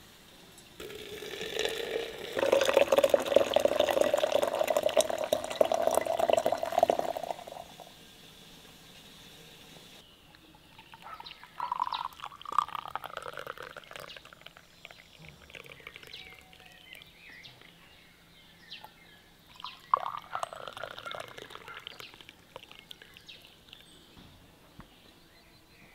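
Liquid poured into a glass jar of dried strawberry slices, a long pour of about six seconds whose pitch rises as the jar fills. Then tea is poured twice into small tulip-shaped glass tea cups, the two pours about eight seconds apart.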